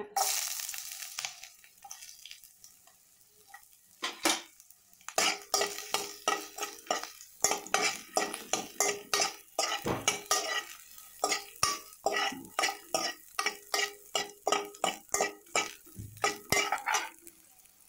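Ginger pieces hitting hot sesame oil in a metal kadai sizzle at the start, fading over a couple of seconds. From about four seconds in, a steel ladle scrapes and clinks against the pan in quick strokes, about three a second, the pan ringing with each stroke, stopping near the end.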